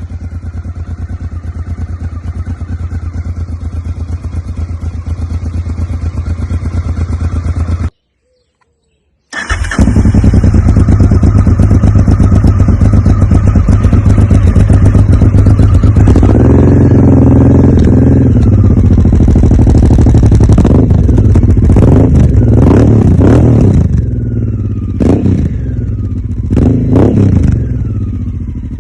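Honda Africa Twin 750's V-twin engine with an Arrow aftermarket exhaust, idling at first. After a brief cut it runs much louder, and near the end it is revved up and down in several short throttle blips.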